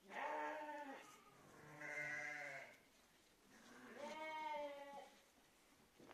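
D'man sheep bleating: three separate bleats, each about a second long, the last with a wavering pitch.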